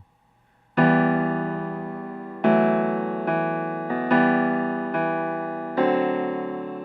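Piano chord progression playing back, about a second of quiet and then six chords struck roughly a second apart, each ringing on and fading until the next.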